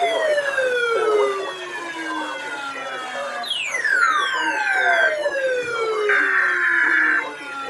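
A siren-like tone that glides from high to low over about three seconds, starting once more about four seconds in. Steady high beeps, each about a second long, sound over the second glide.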